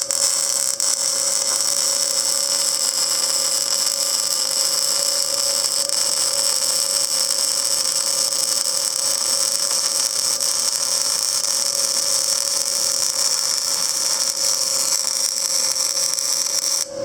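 Panasonic YD-350GR3 semi-automatic (CO2/MIG) welder laying one continuous bead, a steady arc sizzle about 17 seconds long. It starts and cuts off abruptly as the torch trigger is pulled and released.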